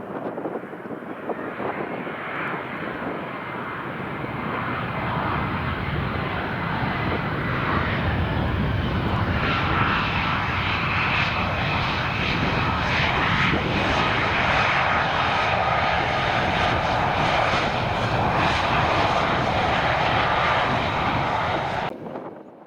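Jet airliner engines running, growing louder over the first several seconds and then holding steady, with a high whine above the deep rumble. The sound cuts off abruptly near the end.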